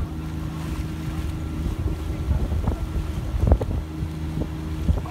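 A boat engine running steadily, with gusts of wind buffeting the microphone from about two seconds in.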